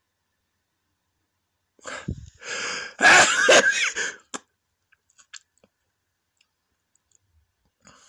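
A man sneezing: two short catching breaths, then one loud sneeze about a second long with his voice in it.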